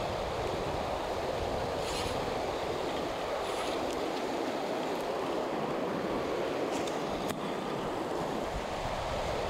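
Steady rush of a shallow river running over stones and riffles. Two faint brief hisses come about two and three and a half seconds in, and a single sharp click shortly after seven seconds.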